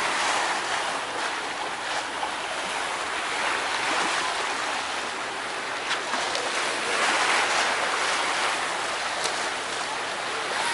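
Open-sea water rushing and splashing beside a moving boat, with wind: a steady hiss that swells and eases every few seconds.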